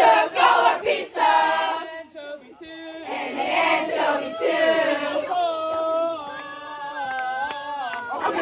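A group of young voices singing a camp song together, unaccompanied and in unison.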